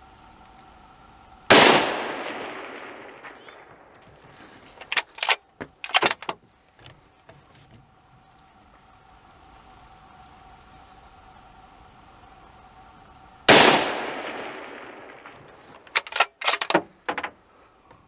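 Two rifle shots about twelve seconds apart, each trailing off in a long echo. A few seconds after each shot comes a quick run of sharp metallic clicks as the rifle's action is worked to chamber the next round.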